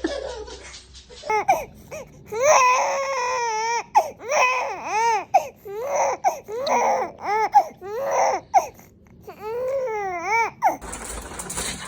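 A baby crying and fussing in a string of short, high-pitched wails, each rising and falling in pitch, about one a second. The crying is typical of a put-on fake cry.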